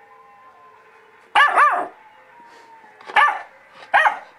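Puppy barking: a quick double bark about a second and a half in, then two single barks about a second apart near the end.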